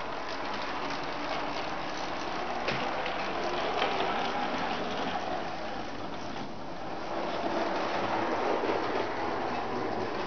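Model trams running on a layout's track: a steady rattle of small wheels on rail, dotted with light clicks, swelling somewhat in the latter half.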